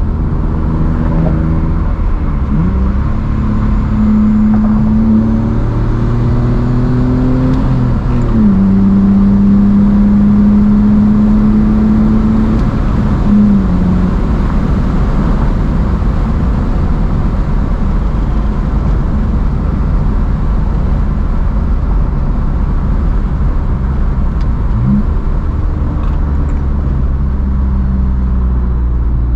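BMW inline-six engine pulling hard through the gears. Its pitch climbs and drops back at each upshift, at about 3 s and about 8 s in, then holds steady before dropping again. The car then cruises with steady engine and road noise, and the engine pulls up again near the end.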